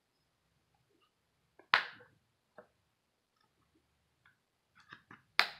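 Plastic back cover of an Alcatel Onyx phone being pried off with a plastic opening tool: sharp clicks as its clips snap loose, the loudest about two seconds in and another near the end, with a few smaller ticks between.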